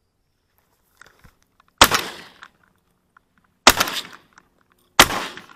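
Shotgun fired three times, each shot a sharp loud crack with a short echoing tail: the first about two seconds in, the next two nearly two seconds and just over a second later. A few faint rustles come just before the first shot.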